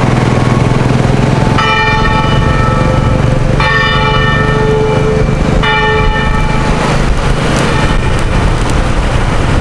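A bell struck three times, about two seconds apart, each stroke ringing out and fading, over a steady low hum and street noise.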